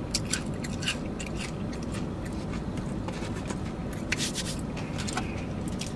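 Steady low hum inside a car, with a few scattered soft clicks and scrapes.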